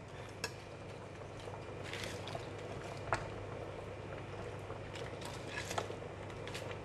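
Soup bubbling at a steady boil in a stainless steel pot, with a few soft taps and rustles as leafy choy sum is dropped in.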